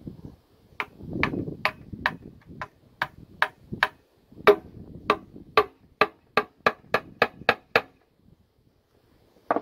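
Socket ratchet clicking as a 10 mm bolt is backed out: a run of single sharp clicks, two or three a second and quickening near the end. The clicks stop about two seconds before a single sharp knock right at the end.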